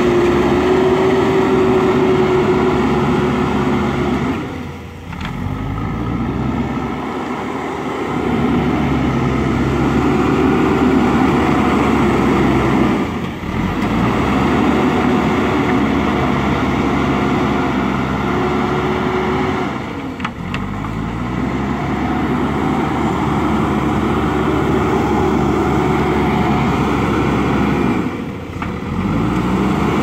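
JCB backhoe loader's diesel engine working hard as the machine pushes sand with its front bucket. The engine note drops and climbs back four times, about every seven to eight seconds.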